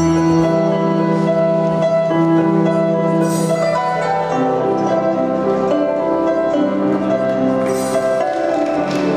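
Instrumental music with a slow melody of held notes changing every second or so.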